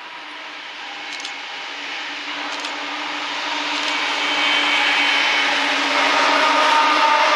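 Freight train's lead diesel locomotives approaching and passing close by, their engines running with a steady hum and whine over wheel-on-rail noise that grows steadily louder.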